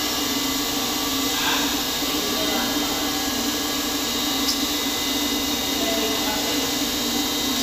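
Electric cistern water pump motor running with a steady hum and a thin high whine over it.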